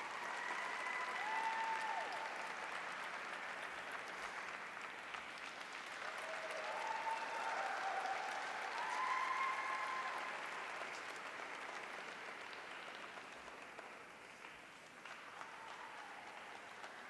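Spectators applauding in an ice rink, with a few short cheering calls from individual voices near the start and again midway; the clapping thins out toward the end.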